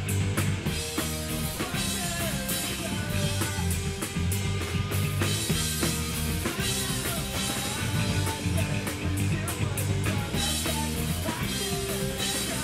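Live rock band playing with distorted electric guitars, electric bass and a drum kit in a steady beat.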